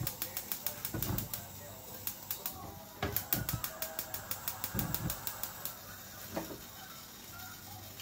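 Fish cooking in hot oil, crackling and spitting in rapid runs of sharp pops that thin out over the last couple of seconds, with a few dull low thumps in between.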